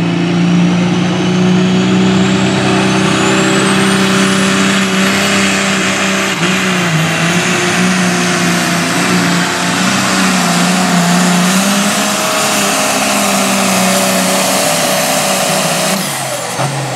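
A light pro stock pulling tractor's turbocharged diesel engine runs flat out under full load pulling the sled, with a high turbo whine climbing over the first few seconds. The engine note dips briefly a couple of times. Near the end the engine is backed off and the whine winds down as the pull ends.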